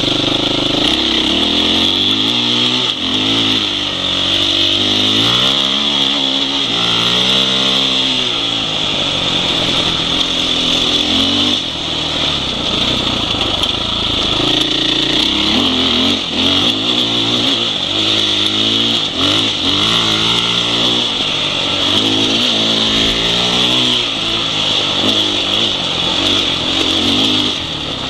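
Husqvarna 501 enduro motorcycle's single-cylinder four-stroke engine, ridden along a dirt road. Its pitch rises and falls over and over as the throttle opens and closes, over a steady hiss of wind and road noise on the onboard microphone.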